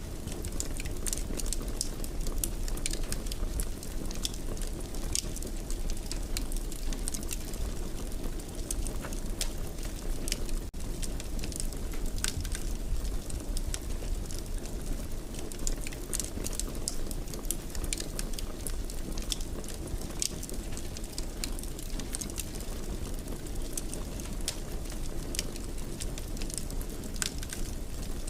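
Wood fire crackling in a fireplace: a steady low rumble with frequent small sharp pops and crackles, broken by a momentary dropout about ten seconds in.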